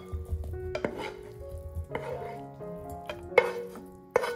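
A metal pan clinking and scraping against a glass bowl as cooked pumpkin and leek are tipped out of it, with several sharp knocks, over light background music.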